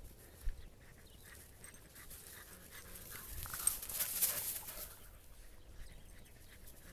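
Dog panting while dogs scramble through dry grass, loudest around the middle as they come close. A short low bump about half a second in.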